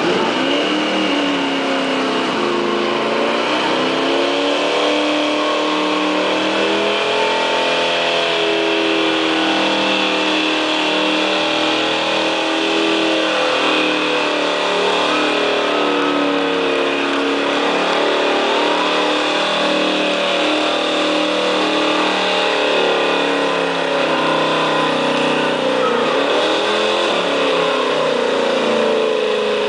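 1969 Camaro Z28's V8 revved hard and held high through a burnout, its rear tyres spinning on the pavement. The revs sweep up and down, dipping briefly near the start and again near the end.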